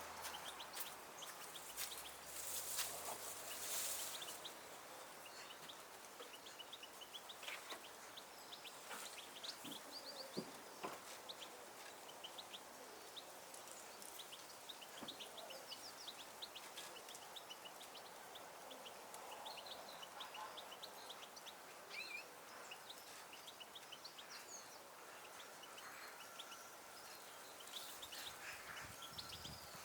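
Small songbirds chirping and twittering, many short high calls scattered throughout, with a few brief rustles or knocks in the first few seconds.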